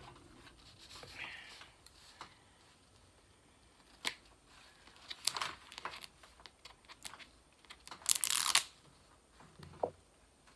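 Scissors cutting at the plastic safety seal on a jar of body soufflé: a few scattered snips and clicks, then a louder half-second rustle of plastic a little after eight seconds in.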